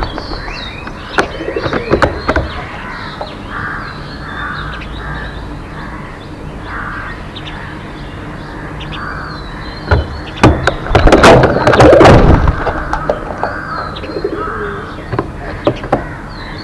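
Several birds calling in a morning chorus: small high chirps throughout, a run of repeated, evenly spaced calls, and a louder, denser stretch of sound about ten to twelve seconds in.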